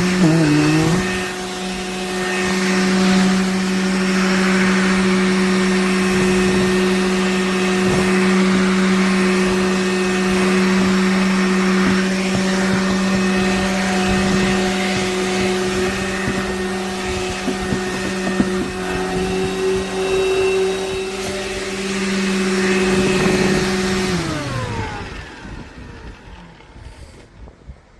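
Cordless handheld vacuum motor running steadily with a hum and the hiss of its airflow, then switched off about 24 s in, its pitch falling as the motor winds down.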